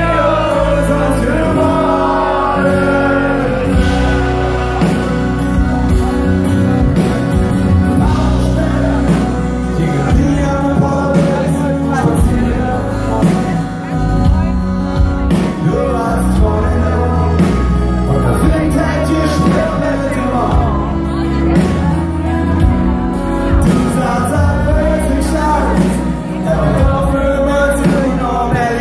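Live band playing a song with a male lead singer, acoustic guitar, accordion and drums, heard loud through the hall's PA.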